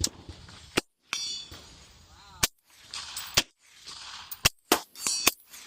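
Rifle shots fired in a quick string, about seven sharp reports at uneven spacing, some only a quarter to half a second apart.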